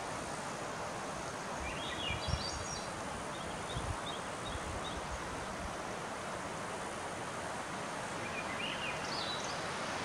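A steady rush of wind through the conifer canopy, with a few low thumps of wind on the microphone. A small bird sings twice: a quick run of rising notes followed by a few short notes about two seconds in, and a similar rising phrase near the end.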